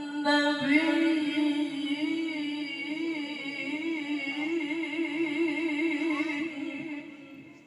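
A man reciting the Qur'an in a melodic tilawah style into a microphone: a few rising notes, then one long held phrase with wavering ornaments that fades away near the end.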